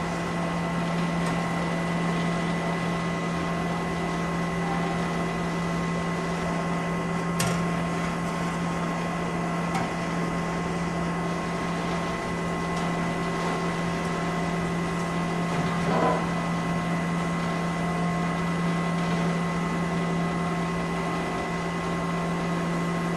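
Steady hum of the running machinery of a small automatic soymilk and tofu plant, a low drone with several steady tones over it. A sharp click comes about seven seconds in and a brief rattle about sixteen seconds in.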